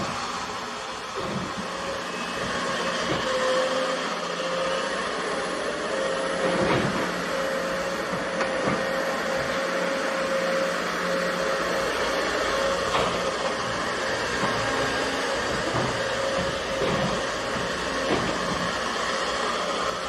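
Kobelco hydraulic excavator working as it digs: a steady engine drone with a held tone over it, and a few brief knocks now and then.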